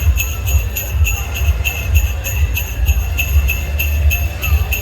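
Music led by jingle bells shaken on a steady beat, about three strikes a second, over a heavy low bass.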